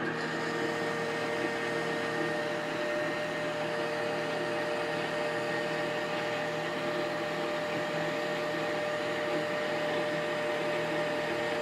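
Monarch engine lathe running steadily with several steady tones from its drive, while a carbide turning insert takes a light, slow-feed cut on a spinning 1045 steel shaft, shedding chips. A pass of about 15 thousandths, half the remaining stock, taken to even out the tool pressure before the final size.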